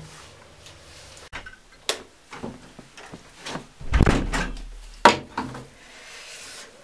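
A door being handled and shut: scattered small clicks and knocks, then a heavy thump about four seconds in and a sharp latch click about a second later.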